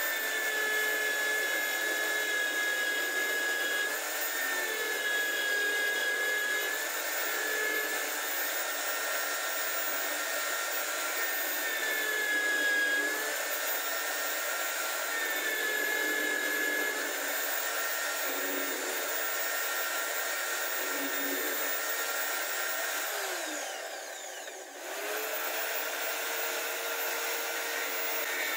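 Homemade drill press running at speed with a steady high whine as the bit bores into laminated plywood. Its pitch dips briefly each time the bit is fed into the wood. Near the end the sound falls away for a moment and then picks up again.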